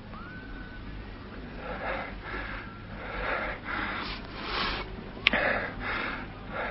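A person breathing hard in quick, wheezy breaths, about two a second, with a sharp click about five seconds in, over the low hum of an old radio recording.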